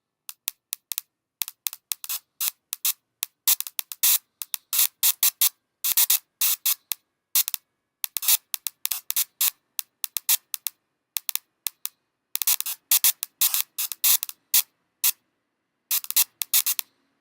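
Electronic clicks and short bursts of hissing noise generated in Max/MSP, in an irregular stuttering pattern with silent gaps between them.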